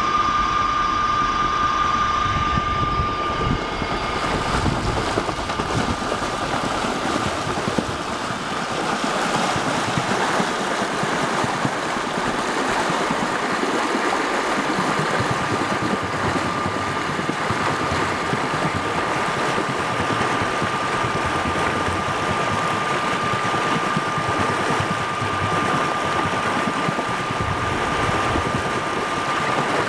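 Yardmaster effluent stirrer running, its electric motor giving a steady high whine over the rushing and churning of the slurry it is stirring in the tank.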